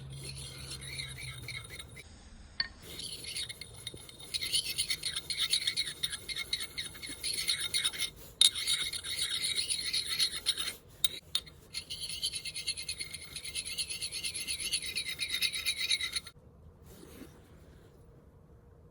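A polished jadeite whetstone rod rubbed in quick circles against the steel edge of an axe, making a steady gritty scraping of stone on steel. It polishes out the file's scratch pattern and takes off the burr. The scraping pauses briefly twice and stops abruptly about three-quarters of the way through.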